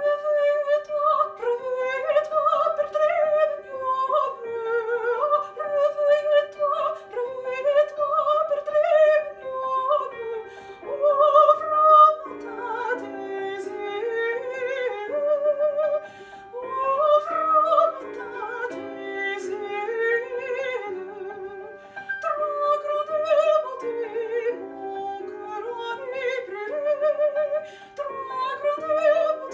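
A soprano singing a classical art song in operatic style, with wide vibrato, over piano accompaniment.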